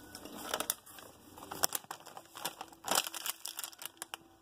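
Crinkling of a foil Lay's potato-chip bag as it is picked up and turned over in the hand, in irregular crackles with a few louder ones.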